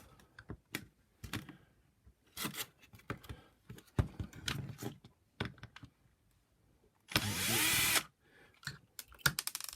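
Clicks and knocks of plastic parts being handled, then, about 7 s in, a power screwdriver whirs for about a second, its pitch rising as it spins up, undoing a screw in a vacuum power nozzle.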